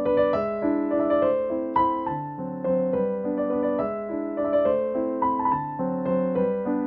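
Background piano music: a steady flow of struck notes and chords with a moving melody line.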